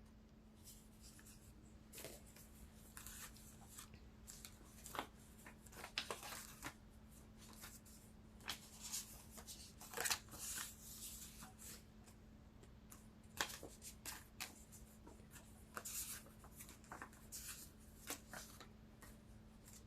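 Faint scattered rustling and clicking of tarot cards being handled and shuffled, in short irregular bursts.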